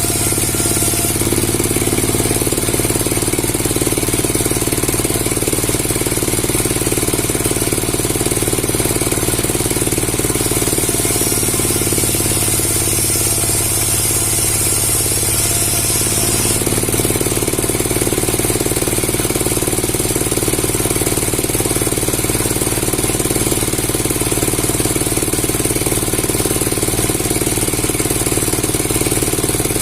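A heavy machine running steadily with a fast, even knocking rattle over a constant hum.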